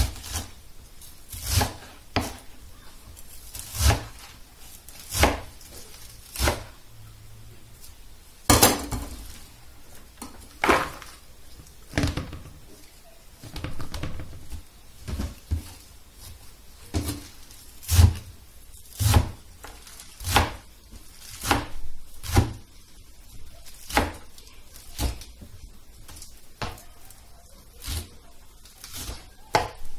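Kitchen knife cutting vegetable leaves on a chopping board: sharp knocks of the blade striking the board, at an uneven pace of about one a second.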